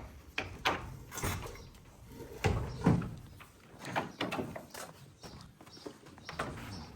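Irregular knocks and clatters with scuffing in between, from sheep being handled and moving their hooves on a hard surface; the loudest knocks come about two and a half and three seconds in.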